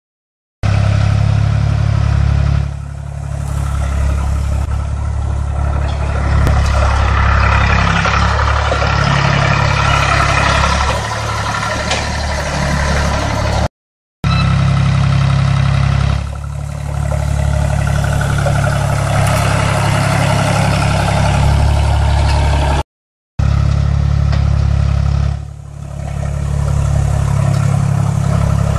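1969 Ford 2000 three-cylinder diesel tractor engine running steadily under load as it pulls a disc harrow through the soil, dipping briefly in level three times.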